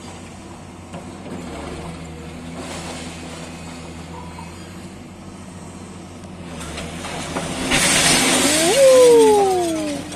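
Demolition excavator's engine running steadily, then about eight seconds in a loud rushing crash of brick and rubble as a section of the building's wall comes down, with a falling whine near the end.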